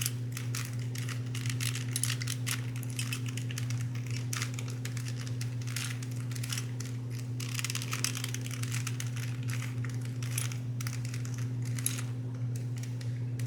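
Layers of a stiff, stickered Rubik's brand cube being turned in a quick, irregular run of plastic clicks and scrapes, as an algorithm is executed to rotate the centers. A steady low hum runs underneath.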